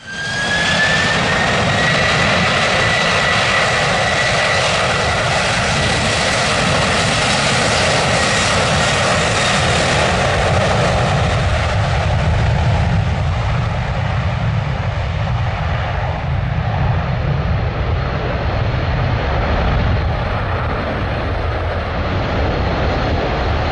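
Airbus A330 airliner's twin jet engines at take-off power during the take-off roll: a loud, steady rumble with a whine that rises slightly in the first couple of seconds and then holds steady. The high whine fades in the second half as the aircraft heads away down the runway.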